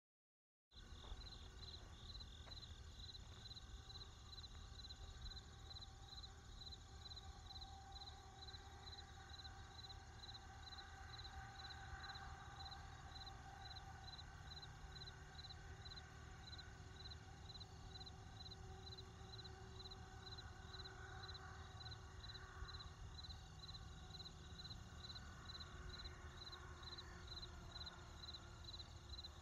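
Crickets chirping in a steady, even rhythm, about two chirps a second, with fainter insect tones behind them, over a low steady rumble of distant road traffic. It fades in just under a second in.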